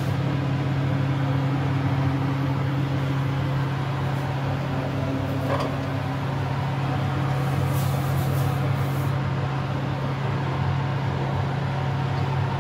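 Steady low mechanical hum, like a motor running, with a few brief faint scrapes or clinks about halfway through.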